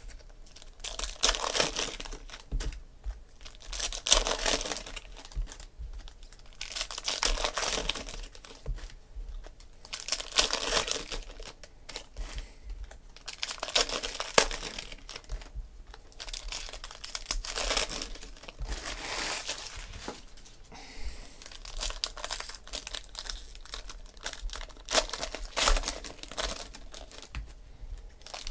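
Foil trading-card pack wrappers of Panini Prizm football being torn open and crinkled by hand, in bursts of crackling every two to three seconds.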